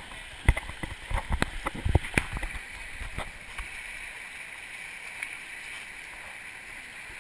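Shallow river rushing over boulders: a steady hiss of white water. A run of sharp knocks and bumps in the first three seconds or so, louder than the water.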